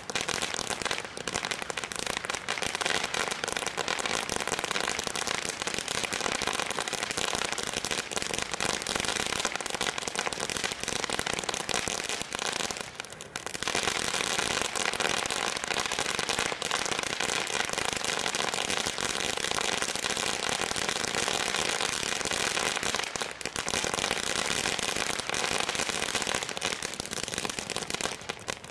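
Brightstar firework fountain spraying sparks with dense, continuous crackling over a steady hiss. The crackle briefly thins about 13 seconds in and again a little after 23 seconds.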